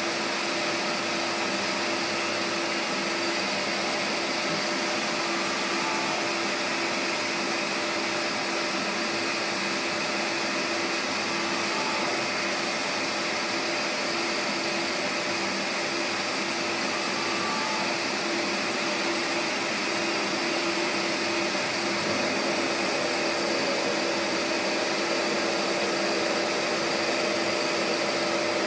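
MAHO four-axis CNC universal milling machine running: a steady whir of motors and fans with a constant hum under it, while its rotary table is turned. The sound grows slightly louder near the end.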